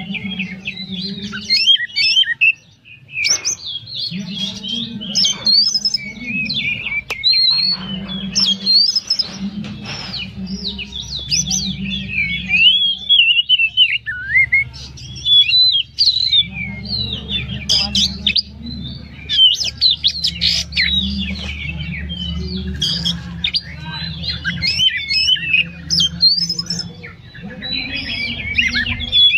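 Oriental magpie-robin (kacer) singing without a break: a fast, varied stream of whistles, trills and chirps packed with imitated phrases of other birds, over a low hum.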